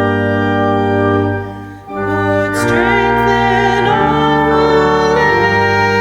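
Organ music: a held chord fades out a little under two seconds in, then a new phrase of sustained chords begins, with a wavering melody line above it.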